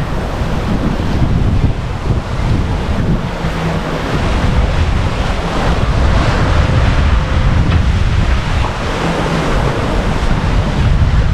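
Waves and wash rushing along the hull of a sailboat running before a following sea, with steady wind buffeting the microphone.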